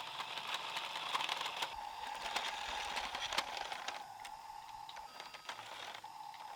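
Radio-controlled model excavator working, a small motor whining steadily under a string of small clicks and rattles. The whine drops out briefly about five seconds in, then resumes.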